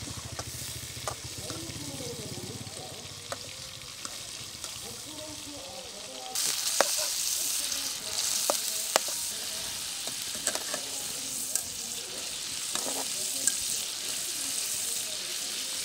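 Battered prawn pakodas deep-frying in hot oil in a metal kadai, a steady sizzle that grows much louder about six seconds in. A slotted spoon stirs them, clicking against the pan now and then.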